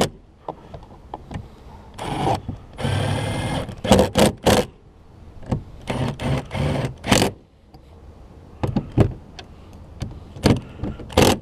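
Milwaukee cordless driver with a socket extension running in short bursts, snugging up a car side mirror's 10 mm mounting bolts. The motor whirs in five or six separate pulses, some under a second and one of about a second, with small clicks between them.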